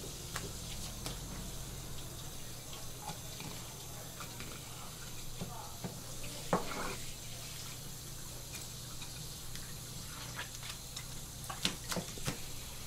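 Spray-head faucet running water over a red sea bream on a plastic cutting board as the fish is rinsed. Sharp knocks and clicks cut through the spray, the loudest about six and a half seconds in and a quick run of them near the end.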